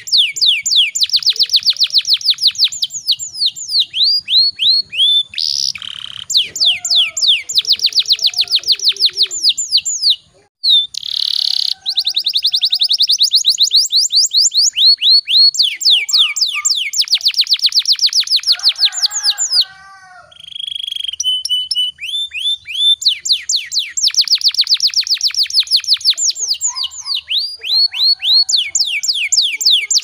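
Domestic canary singing a long rolling song: fast trills of rapidly repeated falling notes, broken by brief pauses twice, with a short held note near the middle.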